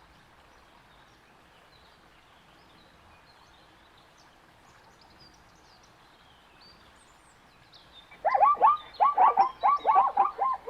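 Faint outdoor ambience with small, faint bird chirps. About eight seconds in, a zebra breaks into a loud, rapid series of barking calls: short yelps, each falling in pitch, several a second.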